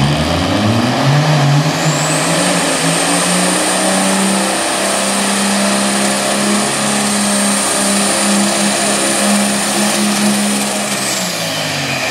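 Drag-racing funny truck doing a burnout: its engine revs up at the start and is held at a steady high speed while the rear slicks spin in smoke, with a thin high whine over it. The revs drop away about a second before the end.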